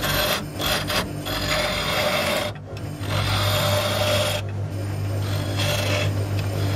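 A turning tool cutting into an apple-wood vase blank spinning on a lathe, with a steady rasping sound of shavings peeling off in strokes and brief breaks between them. The lathe's motor hums low underneath.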